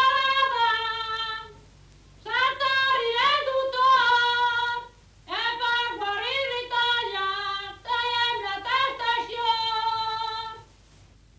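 A single high voice singing a slow melody in phrases of a few seconds, with short breaks between them.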